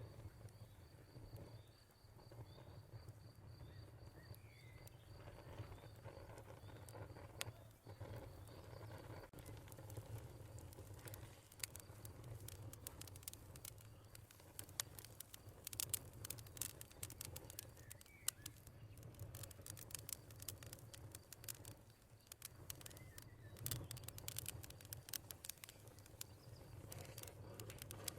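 A crackling fire with sharp pops that become frequent from about ten seconds in, over a low rumble. A cricket chirps steadily in the first third, and a bird calls briefly a couple of times.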